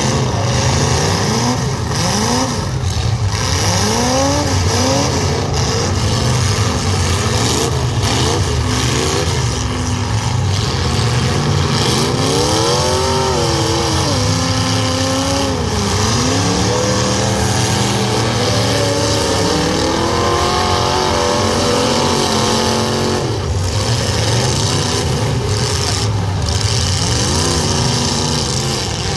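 Several demolition derby cars' engines running loud over a heavy low rumble, revving up and down again and again, the pitch repeatedly climbing and falling.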